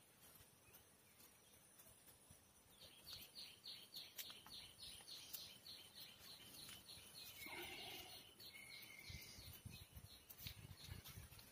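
Faint bird calls: a rapid run of short, high chirps, about four a second, for several seconds, then a couple of longer notes. Low rumbling in the last couple of seconds.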